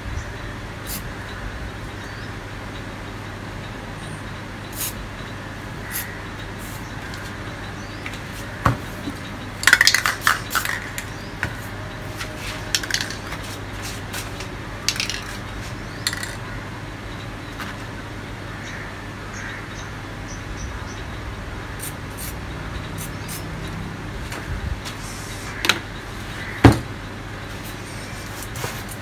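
Aerosol spray-paint cans being used and handled: a few short hisses of spray and metallic clicks and clinks from the cans. The loudest sound is a sharp knock near the end as a can is set down on the table. A steady low hum runs underneath.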